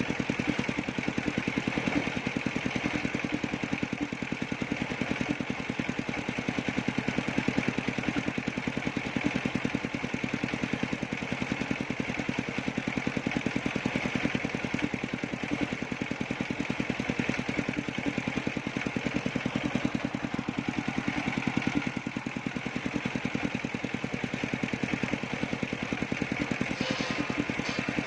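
Engine of a circular sawmill running steadily, with a fast, even firing beat and a constant higher whine.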